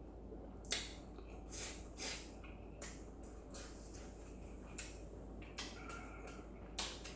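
Close-up eating sounds: a sharp click about a second in, then a series of short slurps and chewing noises from a person eating stir-fried instant noodles.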